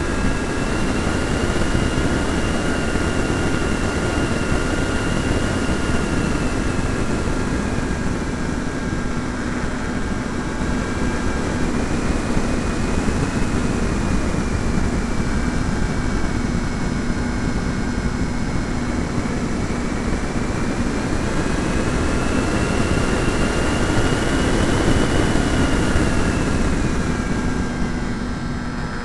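Electric motor and propeller of an E-flite Pitts model biplane, heard from a camera on board: a steady whine whose pitch swells and sags several times and drops near the end, under a strong rush of wind.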